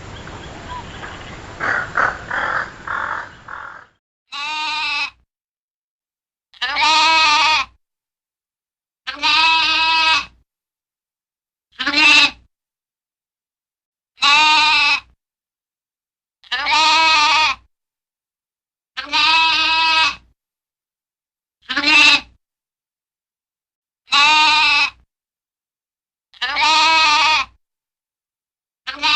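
Repeated bleats from a goat or sheep: about ten wavering calls, each about a second long with a few shorter ones, coming roughly every two and a half seconds with silence between them. They follow a few seconds of noise with some sharp knocks at the start.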